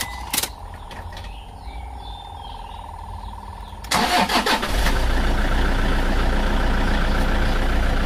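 A click, then about four seconds in the Toyota Kijang Innova's engine is cranked by the starter, catches after a brief crank and settles into a steady idle.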